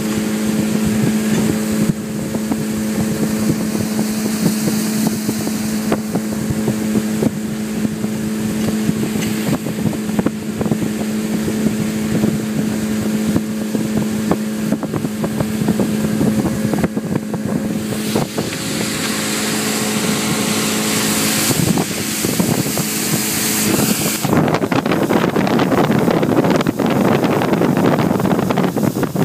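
Speedboat engine running steadily at speed, with wind buffeting the microphone. Near the end a louder rush of wind and water takes over and the engine hum fades under it.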